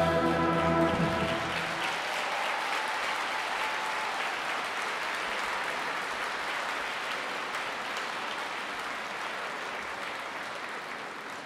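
A brass band's final held chord ends about a second and a half in, and audience applause follows, gradually fading away.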